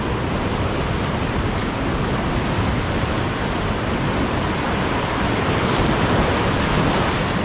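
Ocean surf breaking and washing over shoreline rocks, a steady rush of water.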